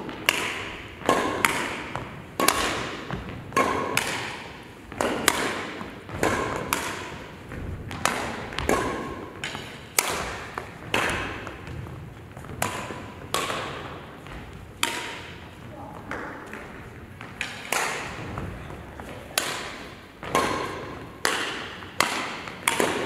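Badminton rackets striking a shuttlecock in a rally: sharp hits about once a second, each with a short echoing tail.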